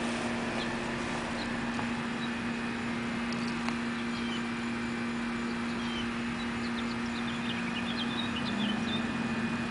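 A steady low hum with faint, short, high chirps scattered through it, likely birds, which come more often near the end.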